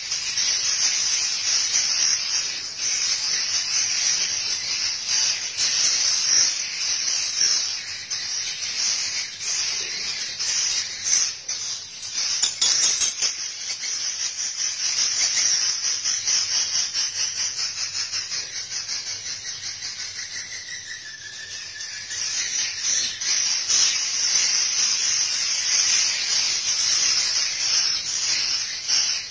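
Edible-nest swiftlets twittering en masse: a dense, continuous high-pitched chatter full of rapid clicks, easing off a little about two-thirds of the way through.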